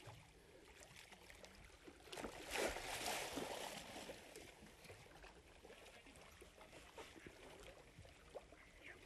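Hooked lemon shark thrashing at the surface beside the boat. It makes a burst of splashing about two seconds in that lasts a couple of seconds, then fainter sloshing water.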